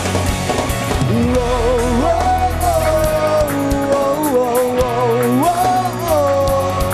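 Live pop-rock band playing, with drums, bass and electric guitars. About a second in, a held lead melody line with a wavering vibrato comes in over them.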